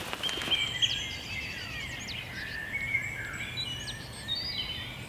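Several songbirds singing in woodland: overlapping whistled notes, chirps and trills from more than one bird, over a faint steady background hum.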